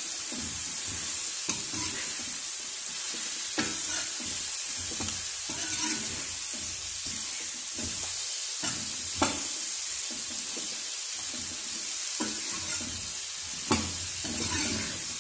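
Cubes of bottle gourd sizzling as they fry in hot oil in a kadhai, stirred with a metal spoon that scrapes and knocks against the pan now and then.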